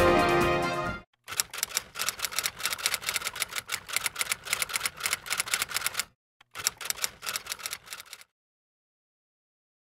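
A music sting ends about a second in; then typewriter keys clack in rapid succession, a long run and, after a brief pause, a shorter one.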